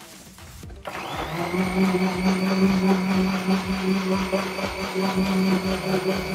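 Electric countertop blender switched on. Its motor spins up about a second in, then runs steadily with a strong hum, grinding a watery mixture of soaked almonds and fennel seeds.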